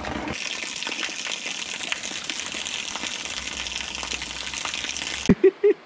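Steady rush of water with small splashes, which stops abruptly about five seconds in.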